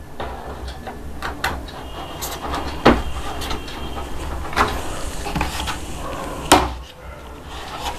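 Moulded plastic cupboard panels knocking and clicking as a side panel is handled and pressed into the frame's slots: several sharp knocks, two louder ones about three and six and a half seconds in.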